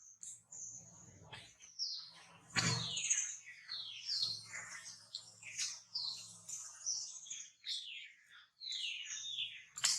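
Dense high-pitched chirping: many short calls, most falling in pitch, several a second, over a faint low hum.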